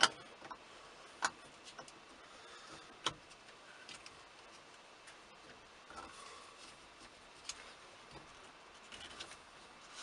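A few scattered light clicks and taps of small parts being handled at the top of a 1983 Jeep Wagoneer's steering column with the wheel removed, the sharpest at the start, about a second in and about three seconds in, with fainter ones later.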